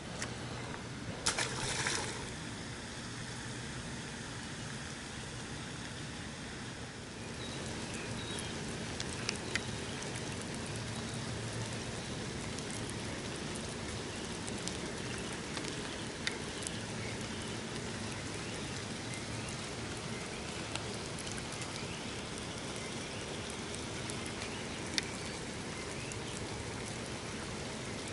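Steady rain falling on the pond and the grass, an even hiss that gets louder about seven seconds in. A short rustle comes about a second in, and a few sharp ticks are scattered through it.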